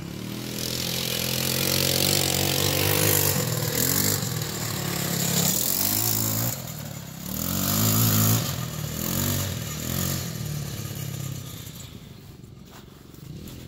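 TaoTao 150cc four-stroke ATV engine under way, its pitch rising and falling with the throttle. It backs off briefly about halfway through, picks up again, then eases off near the end.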